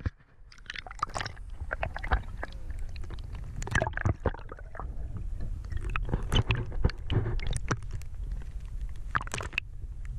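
Muffled water sloshing and irregular clicking and knocking, heard through an action camera held underwater, over a steady low rumble.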